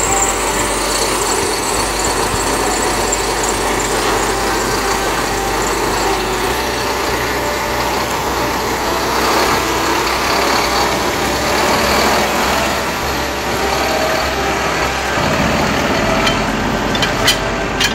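Steady mechanical running noise, like an engine or farm machinery, with a few sharp clicks near the end.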